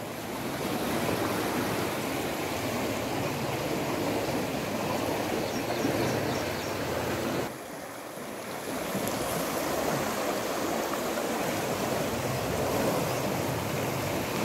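Steady rush of fast-flowing floodwater running along a street and drain. It drops off briefly about halfway through, then picks up again.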